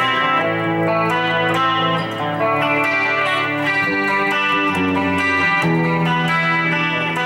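Epiphone Les Paul Limited Edition Special I electric guitar played through a Boss eBand JS-10 effects processor: a run of ringing chords, changing about once a second.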